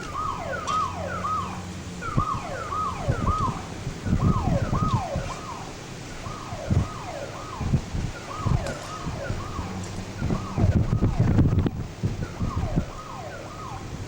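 An electronic alarm sounding a string of short, falling whoops, often two or three in quick succession, repeating irregularly. Uneven low rumbling and thumps sit underneath it.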